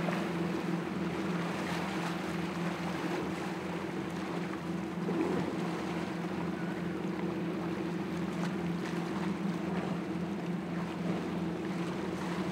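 Motorboat engine running at a steady pitch, with the rush of waves and water around the hull.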